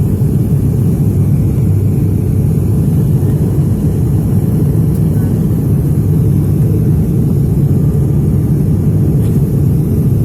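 Airliner cabin noise: a loud, steady low rumble of the engines and airflow heard from inside the cabin during the approach to landing.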